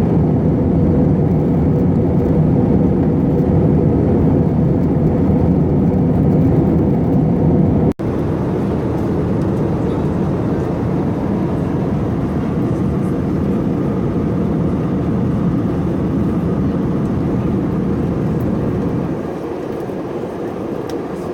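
Steady engine and airflow noise inside the cabin of an Airbus A321 airliner. It briefly cuts out about a third of the way in, comes back slightly quieter, and steps down again near the end.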